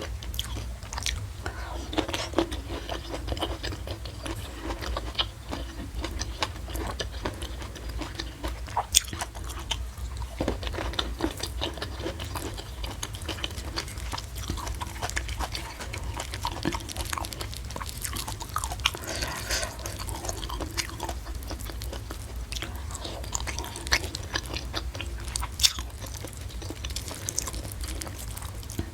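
Close-miked eating: chewing and biting with many short crunches and clicks.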